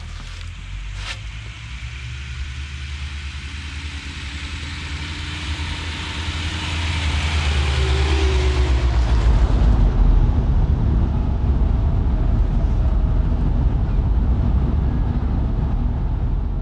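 A 1988 Isuzu Trooper II drives up and passes close by on a snow-covered track, its engine and tyre noise growing louder as it nears. After that comes a steady low engine and road rumble.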